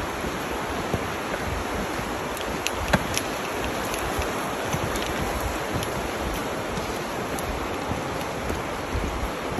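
Steady rushing of a creek, with a few sharp clicks over it; the loudest click comes about three seconds in.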